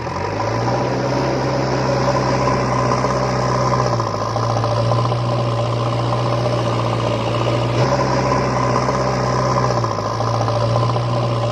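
Heavy vehicle engine idling steadily, with a deep hum that dips briefly about four and ten seconds in.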